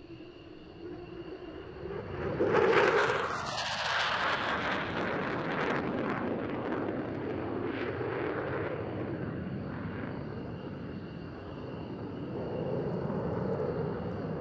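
Jet noise from an F-35B Lightning's F135 turbofan during a display pass. It comes in suddenly about two seconds in and is loudest just after, with a swishing sweep in pitch. It then stays loud and steady, swelling again near the end.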